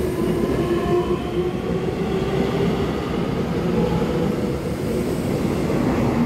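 A TRA EMU700-series electric multiple unit pulling out of the station and rolling past close by, its wheels and running gear rumbling steadily. Over this is the faint whine of its electric traction motors, climbing slightly in pitch as it picks up speed.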